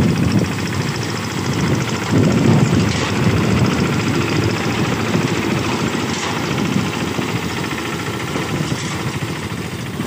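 Small diesel engine of a ride-on reaper-binder running steadily as the machine cuts wheat, a continuous even mechanical drone with a fast pulse and no pauses.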